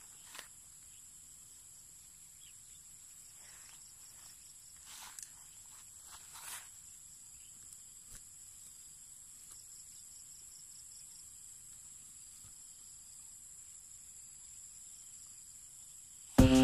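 Steady high-pitched chorus of insects chirring, with a few soft rustles in the grass in the first seven seconds. Music cuts in loudly at the very end.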